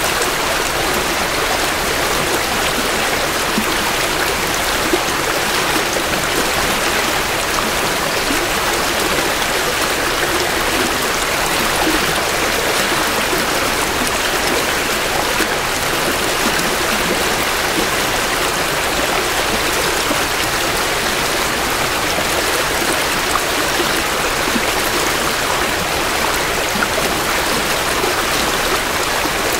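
Creek water flowing steadily over rocks, a continuous even rush and babble with no pauses, from a meandering brook swollen with spring runoff.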